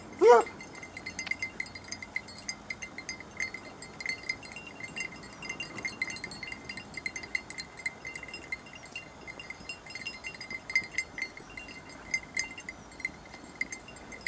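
Small bells on hunting hounds jingling continually as the dogs move about searching for a hare, with one short yelp from a hound just after the start.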